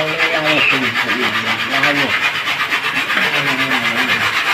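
Fresh coconut being grated by hand on a grater: a steady rasping scrape in a fast, even rhythm of strokes.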